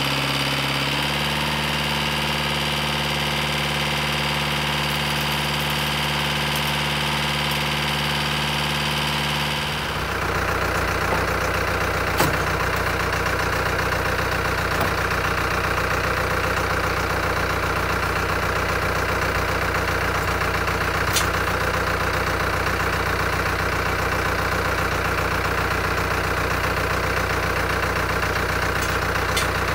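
Farm tractor's diesel engine idling steadily, with a few light sharp clicks.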